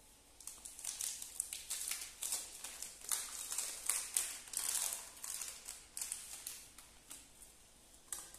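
Plastic wrapper of a Torku Gofret wafer bar crinkling and crackling as hands handle it, a quick irregular run of crackles for about six seconds, then a single sharp click near the end.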